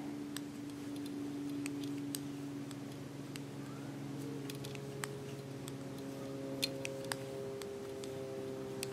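Knitting needles clicking lightly and irregularly as stitches are worked, over a faint steady hum that changes pitch about halfway through.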